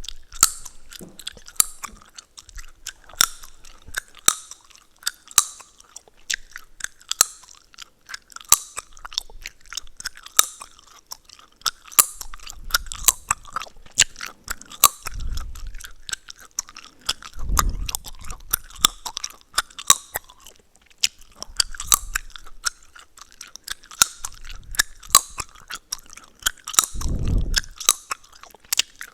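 Close-miked gum chewing: wet mouth sounds with frequent sharp cracks and snaps of the gum, a few a second, and now and then a duller low bump.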